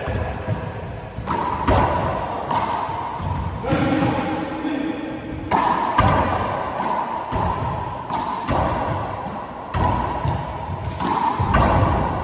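A rubber handball being slapped by hand and rebounding off the walls and wooden floor of an enclosed four-wall court during a rally. It makes an irregular run of sharp smacks and thuds, each with a short echo.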